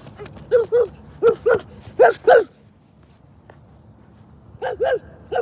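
A dog barking in quick pairs of short, loud barks, with a pause of about two seconds before a final pair.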